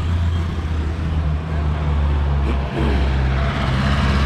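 Motor vehicle engine idling close to the microphone, a steady low hum, amid street traffic.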